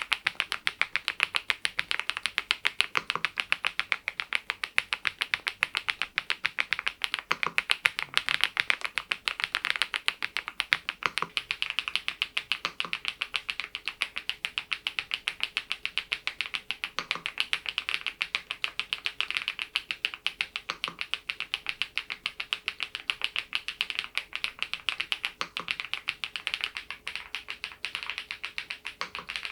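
Typing on a Geekstar GKG87R tenkeyless mechanical keyboard with HMX Mongdol linear switches: a steady, fast run of keystroke clacks.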